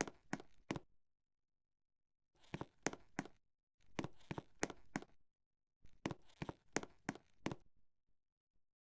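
Clusters of sharp clicks and knocks, several in quick succession, coming in four bursts with dead silence between them.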